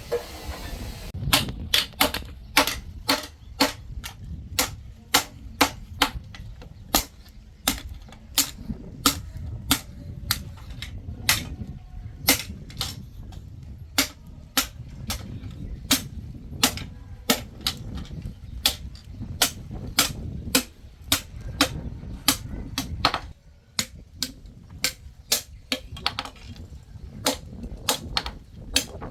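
Hand hammer striking hot steel on an anvil while forging a knife blade: a steady rhythm of sharp, ringing blows, about two to three a second, with a brief pause late on.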